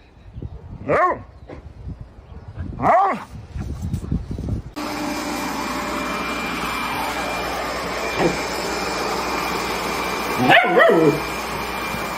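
A dog barking twice, short pitched calls about two seconds apart. Then a steady whooshing motor noise starts abruptly and runs on, and the dog gives one more call near the end.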